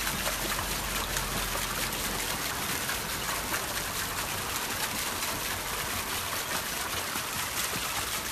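Small dog paddling in a shallow swimming pool: steady light splashing and lapping of water with many small quick splashes.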